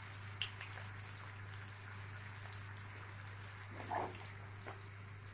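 Pieces of offal frying gently in a little oil in a pan over low heat: faint, scattered crackles and pops over a steady low hum, with a brief fuller knock about four seconds in.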